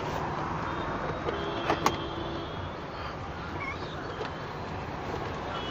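Plastic clicks and a short creak from a Maruti Swift's gear-lever console trim being worked loose by hand, with two sharp snaps close together about two seconds in, over a steady background noise.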